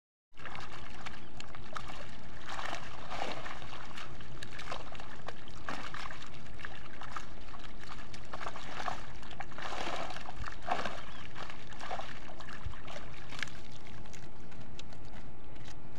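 Water splashing and running off a cast net as it is hauled out of shallow water, in irregular bursts over a steady low background noise; the sound starts abruptly just after the first moment of silence.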